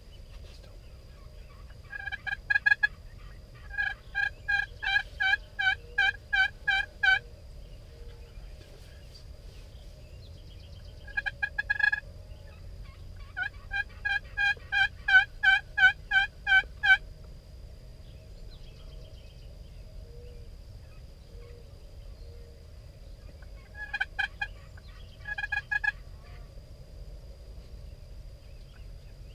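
Turkey yelping: runs of evenly spaced, loud notes, about three a second. Two long runs of around ten notes each are separated by shorter runs and pauses.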